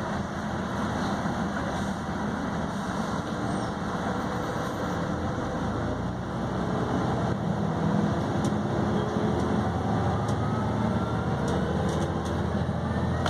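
Volvo B6BLE bus's six-cylinder diesel engine with ZF automatic gearbox, heard from inside the passenger saloon while the bus is under way. The engine gets louder about seven to eight seconds in, and a faint rising whine builds toward the end as the revs climb.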